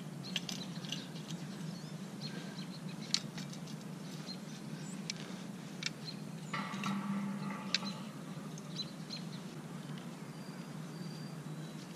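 Scattered light clicks and knocks of fishing rods and their metal rod holders being handled and set in place, a few seconds apart, over a steady low background hum, with a few faint bird chirps.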